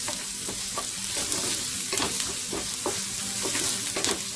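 Chopped onions sizzling in hot vegetable oil in a pan as they are stirred, with the utensil scraping and knocking against the pan several times.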